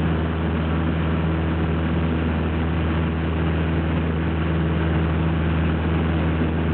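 Propeller aircraft's engine and propeller droning steadily, heard from inside the cabin while climbing out after takeoff.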